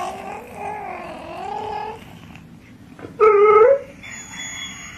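A dog vocalising: a long, wavering whine-like howl lasting about two seconds, then a short, louder cry about three seconds in whose pitch rises at the end.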